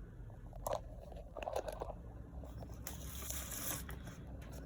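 Faint handling noises: a few light clicks and crackly rustling, with a short hiss in the second half.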